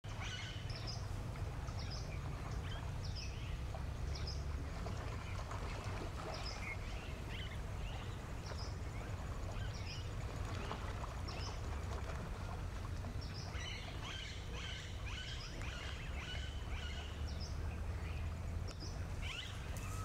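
Scattered short, high bird calls, roughly one a second and busier for a couple of seconds past the middle, over a steady low rumble.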